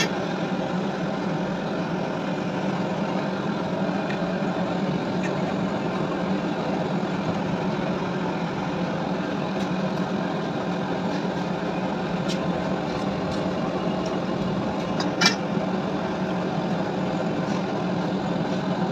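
A steady, even mechanical running noise, with one sharp metallic clink about fifteen seconds in and a few faint ticks of metal parts being handled.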